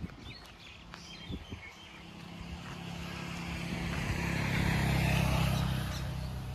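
A motor vehicle passing on the road, its engine hum and tyre noise building to a peak about five seconds in, then easing off.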